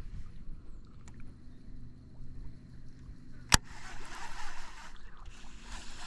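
Baitcasting reel: a single sharp click about three and a half seconds in as the reel is put back in gear, then the reel being wound in two stretches with a short pause between.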